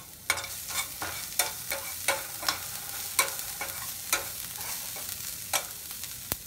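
A metal spoon scraping and clinking against a stainless-steel pan as chopped onions, curry leaves and green chillies are stirred while they sauté in oil, over a steady sizzle. The clinks come irregularly, one or two a second, starting about a third of a second in.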